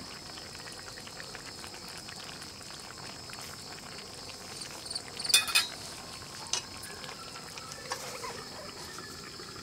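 Fish curry simmering and bubbling in an aluminium karahi, stirred with a steel spatula, with two sharp metallic clatters about five seconds in. Near the end an aluminium lid is set on the pan with a light knock and brief ringing.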